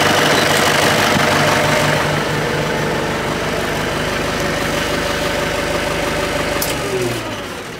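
Kubota M95S tractor's diesel engine idling steadily. Near the end it is switched off with a click and winds down, its pitch falling as it stops.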